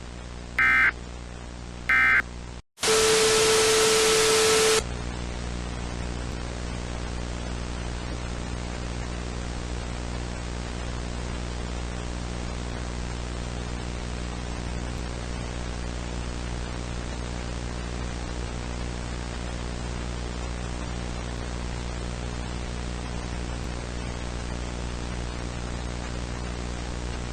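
Two short bursts of warbling digital data tones, the Emergency Alert System end-of-message signal, about a second apart. After a brief dropout comes about two seconds of loud static with a steady low tone, then steady hiss with a low hum.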